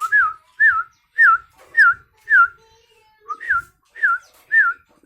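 Young sooty-headed bulbul calling: a string of eight short, clear notes, each dipping and rising in pitch, about two a second with a short pause midway.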